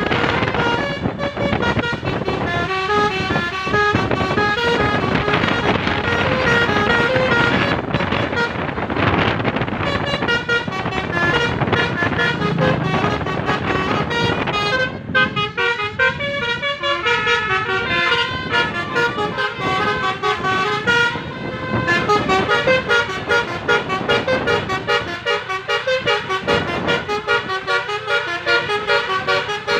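Basuri telolet horns playing tunes: quick runs of short, stepped notes that keep changing pitch, blaring continuously as a vehicle drives.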